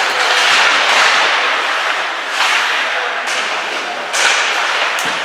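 Ice hockey skate blades scraping and carving on the ice in several hissing surges, with a sharp knock near the end.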